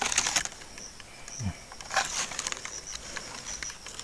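Rustling and crackling of someone moving through grass and dry leaves while handling a mesh net bag of fish. The bursts come near the start and again about two seconds in, over a faint steady high-pitched insect drone.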